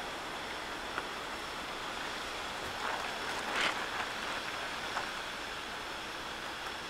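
Steady rushing outdoor noise of an approaching thunderstorm, mostly wind, with no thunder. A few faint ticks come about one, three and a half, and five seconds in.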